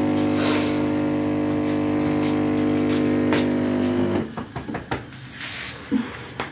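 A steady droning hum with several fixed pitches, which cuts off suddenly about four seconds in, followed by a few light knocks and rustling.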